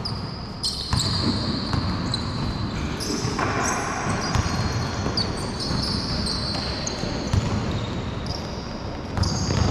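Basketball being dribbled and bounced on a hardwood-style indoor court during a pickup game, with sneakers squeaking and players' footsteps, echoing in a large sports hall.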